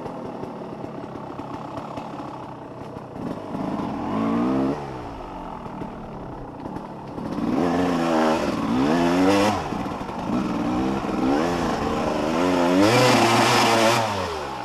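Dirt bike engine revving up and down over and over, its pitch climbing and dropping several times as the throttle is worked; quieter at first, louder in the second half.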